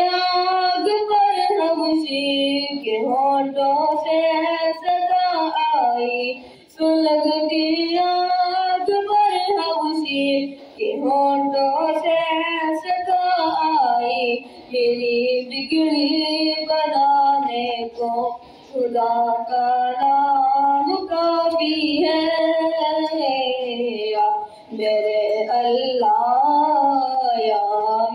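A boy singing a devotional Urdu song (hamd) solo into a microphone, in long melodic phrases broken by short pauses for breath.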